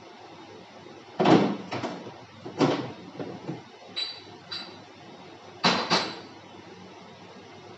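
Irregular metallic knocks and clanks, about eight in all in uneven pairs, two of them with a brief high ring, as metal parts and tools are handled on a plastic injection-moulding machine.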